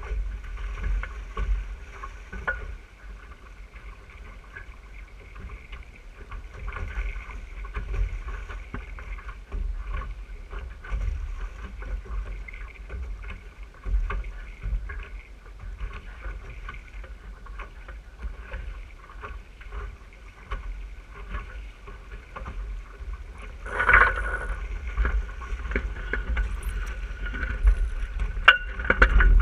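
Wind buffeting the microphone of a camera mounted on an RS 600 sailing dinghy, with water rushing and splashing along the hull as it sails. A louder surge of water comes about four-fifths of the way through, and a few knocks come near the end as the sailor moves across the boat.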